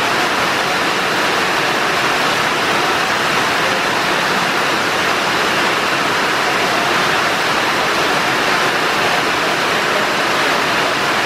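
Steady, loud rushing noise, even and unbroken, like rain or running water.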